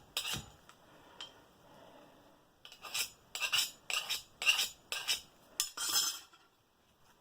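A stainless steel spoon stroked along a scissor blade's edge, metal scraping on metal to raise a burr. There is one stroke at the start, then after a pause a run of seven quick strokes about half a second apart, the last one longer.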